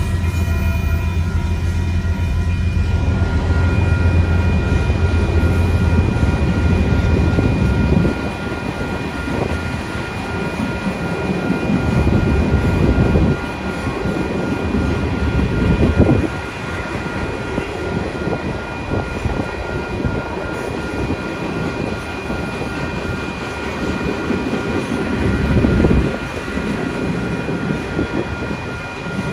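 Freight train tank cars rolling past a grade crossing, a continuous rumble of wheels on the rails that swells several times, with the crossing's warning bell ringing steadily throughout. A low engine hum underlies the first several seconds, then stops.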